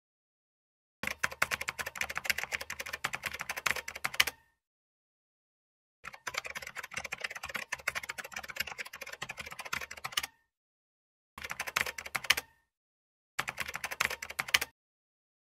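Computer keyboard typing sound effect: rapid key clicks in four runs, the longest about four seconds, with dead silence between them.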